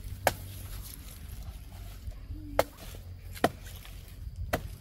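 A broad-bladed knife chopping into the soft, fibrous trunk of a banana plant: four sharp strikes, irregularly spaced.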